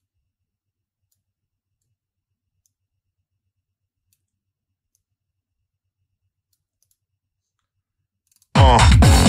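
Near silence with a few faint computer clicks, then about eight and a half seconds in a loud tech house track-in-progress starts playing back from the DAW, with a steady kick drum, bassline and synths.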